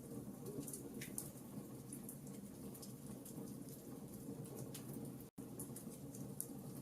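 Campfire burning with a faint low rush and irregular small crackles and pops from the wood, with a split-second dropout about five seconds in.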